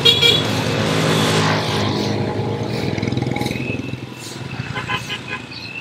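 A motor vehicle's engine running steadily, louder for the first couple of seconds and dropping off about four seconds in.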